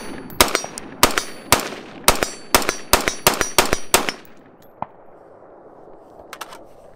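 A 5.56 AR pistol (a 10.5-inch Cox Arms Wulf with a muzzle brake) fired semi-automatically: about nine sharp shots in four seconds, coming faster toward the end, then stopping.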